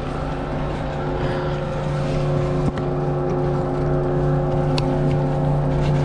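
Steady mechanical hum of chairlift drive machinery, a low drone with several even tones above it that grows slowly louder. Two sharp clicks come about three and five seconds in.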